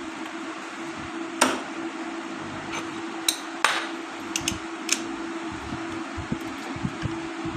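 Metal tools clinking and knocking on motorcycle clutch parts: a handful of sharp metallic knocks, the loudest about a second and a half in, over a steady hum.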